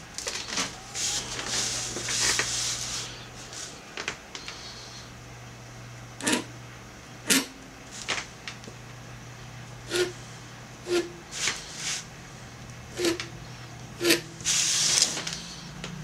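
A calligraphy pen scratching ink strokes across paper, with a longer run of scratching early on and another near the end, and sharp single taps of the pen in between.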